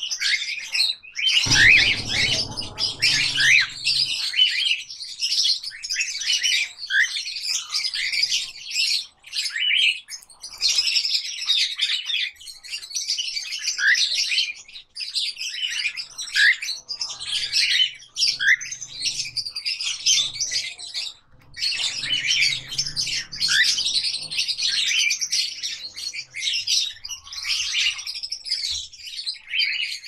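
Many aviary parrots chirping and chattering without a break, in busy high-pitched calls with short rising notes and occasional squawks. A short low rumble comes about two seconds in.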